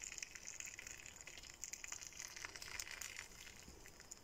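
Faint fizzing crackle of a hot-water bath in a steel baking tray, as bubbles rise around a silicone cake mould, with scattered small clicks that fade toward the end.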